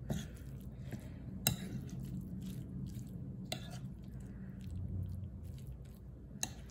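Stirring and mashing soaked breakfast biscuits with water and powdered milk in a bowl: soft squishy stirring, with four sharp clinks of the utensil against the dish spread through it.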